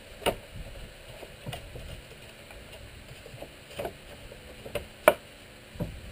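Thin plywood door panels knocking against a pine cabinet frame and the workbench as they are handled and set into the frame's grooves for a test fit: six sharp wooden knocks, the loudest about five seconds in.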